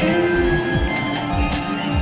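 Background music with a steady beat under sustained melodic tones.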